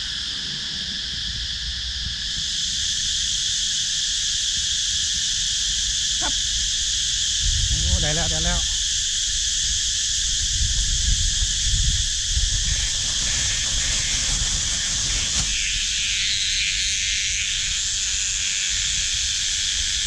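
Cicadas calling in a loud, steady, high-pitched chorus that swells about two seconds in, over a low rumble.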